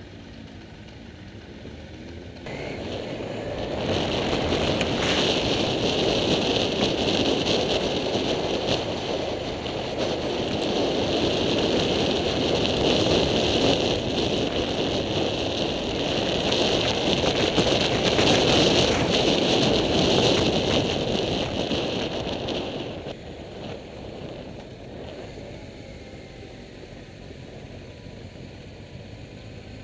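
A motorcycle being ridden, its engine running under a heavy rush of wind on the microphone. The noise swells about three seconds in as the bike gets up to road speed, and falls back to a quieter engine run after about twenty-three seconds as it slows.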